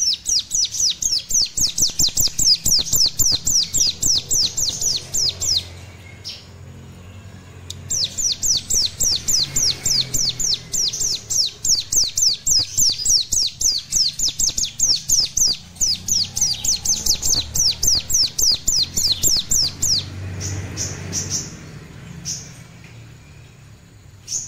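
Young ciblek gunung (mountain prinia) practising its song: a fast, even trill of high, falling notes, about seven a second, in two long runs of roughly five and twelve seconds, with a few single notes near the end.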